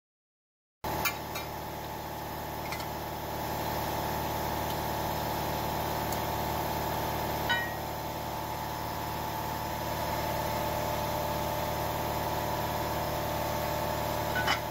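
Steady mechanical hum of a running motor or machine in the machine shop, starting about a second in, with a few light metal clinks as the aluminium extrusion and T-handle hex key are handled on the mill's steel table.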